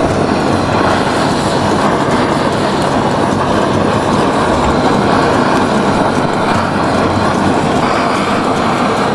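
Handheld gas torch burning with a loud, steady rushing flame noise that does not break.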